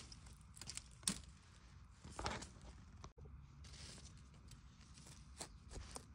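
Faint rustling and crackling of dry bamboo leaf litter being disturbed, with a few scattered sharp ticks, the clearest about a second in and just after two seconds.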